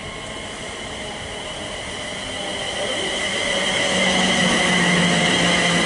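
Siemens Class 350 Desiro electric multiple unit approaching along the platform, growing louder from about two seconds in. A steady high whine and, as it draws near, a lower hum sit over the rumble of the wheels.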